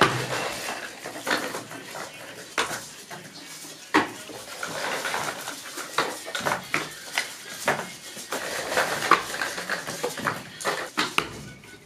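Cardboard firework tubes clattering and knocking as they are stacked and pressed into place by hand, a quick irregular run of light knocks.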